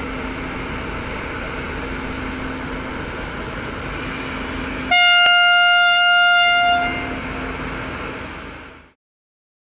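Indian Railways WAP-7 electric locomotive standing with a steady hum. About five seconds in it sounds one loud horn blast of about two seconds, then the hum carries on and fades out.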